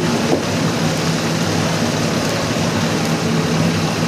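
Steady engine drone under a constant noisy din, with a few faint knocks.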